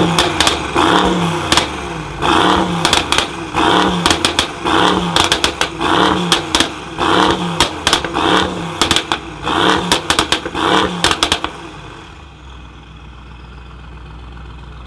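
Tuned Mercedes-AMG GT63 S twin-turbo V8 with aftermarket downpipes, revved in quick blips about one and a half times a second, with sharp exhaust crackles and pops between the revs. About eleven seconds in the revving stops and the engine settles to a lower idle.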